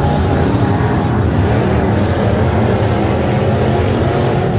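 Several dirt modified race cars' V8 engines running hard together as the pack circles the dirt oval, a loud, steady, overlapping engine noise with pitches rising and falling as the cars accelerate and pass.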